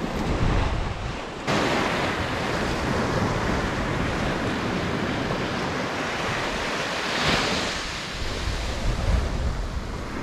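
Surf washing up a sandy beach, with wind buffeting the microphone; the sound changes abruptly about a second and a half in, and a wave breaks loudly about seven seconds in.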